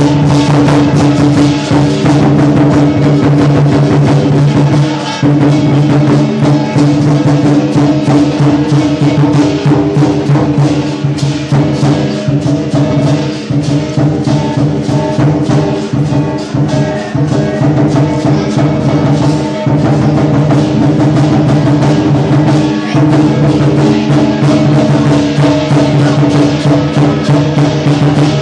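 Loud lion dance percussion music: a drum beaten in rapid, dense strokes with bright metallic crashes over a steady low tone, breaking off briefly twice.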